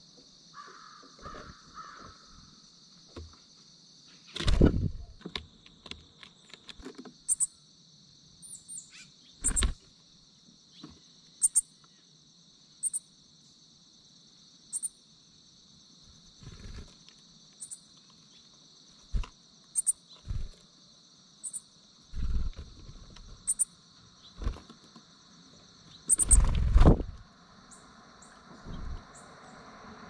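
Outdoor feeder ambience: a steady high insect chorus, with short high bird chips repeating every second or two. Several loud low thumps break in, the loudest about four seconds in and again near the end.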